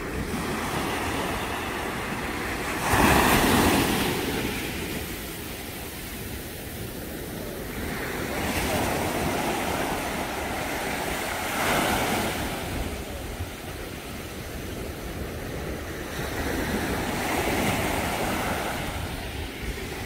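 Small ocean waves breaking and washing up onto a sandy beach, surging four times, the loudest and most sudden about three seconds in.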